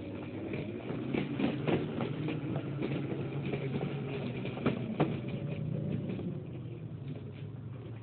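ZBoard electric skateboard rolling over concrete pavement: a steady hum of wheels and drive with sharp clacks as the wheels cross the seams between slabs.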